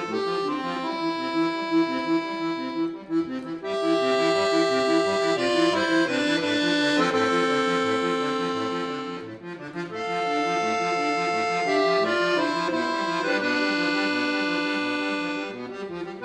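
Solo accordion playing sustained chords over a low, steadily repeated bass figure, with two short dips in loudness about three and nine and a half seconds in.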